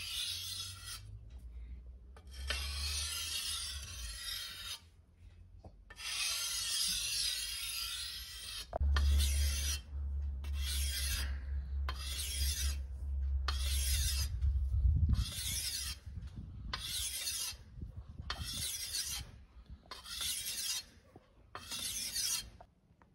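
A steel sword blade, made from bearing steel, is drawn along a whetstone in rasping scrapes. First come three long strokes of about two seconds each. Then a run of short, even strokes follows at about one a second.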